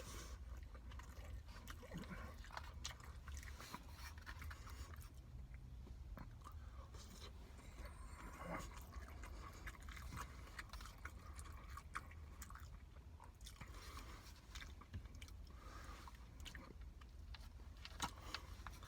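Faint close-up chewing of a mouthful of chicken biryani: soft, irregular wet clicks and small crunches, over a steady low hum.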